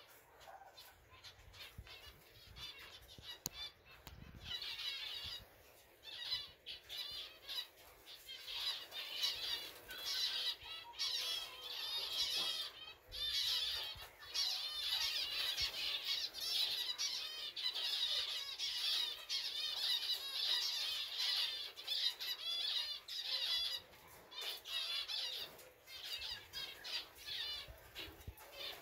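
A flock of zebra finches calling, many short high calls overlapping into a steady chatter that swells about four seconds in.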